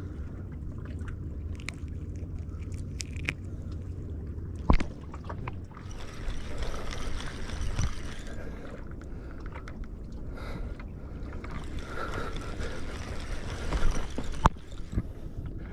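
Steady low wind rumble and sloshing sea water, with a spinning reel being cranked as a fish is played and scattered small handling clicks. Two sharp knocks, about five seconds in and near the end, are the loudest sounds.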